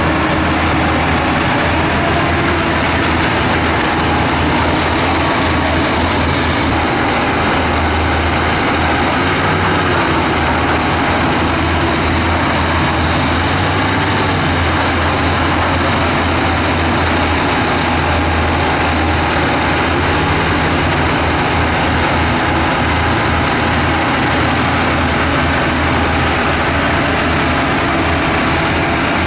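Diesel engine of a heavy earthmoving machine running steadily, its sound concentrated in the low end, with faint wavering tones above it.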